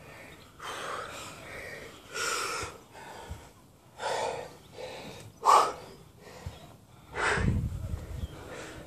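Heavy, gasping breaths from winded amateur boxers, coming in separate gusts every second or two, the sharpest about five and a half seconds in. A low rumble joins about seven and a half seconds in.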